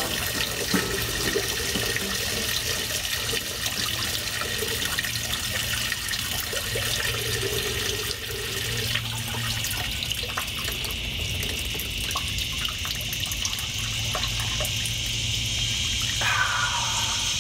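Coolant draining from the Jeep Grand Wagoneer's radiator in a stream into a plastic bucket, a steady splashing pour of liquid that thins to a trickle.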